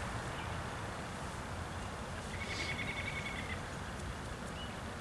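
A bird's short, rapid high trill, lasting about a second from roughly two and a half seconds in, over a steady low outdoor rumble.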